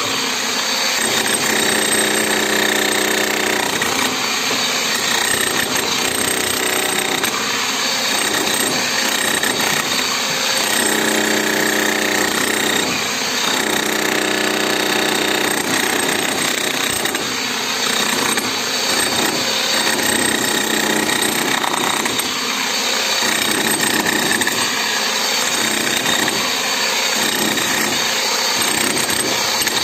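A corded 11 kg DCK electric demolition hammer breaking concrete, its chisel hammering rapidly and without pause, over the hum of its motor.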